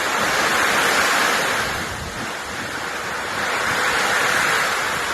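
Surf from a rough sea: a steady rushing that swells twice, about a second in and again around four seconds in.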